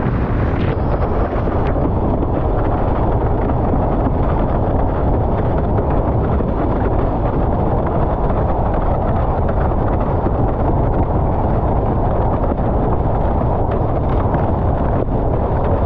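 Strong storm wind buffeting an action camera's microphone on a windsurf rig, a steady heavy rumble mixed with the rush of water as the board sails fast over chop. A couple of brief cracks come in the first two seconds.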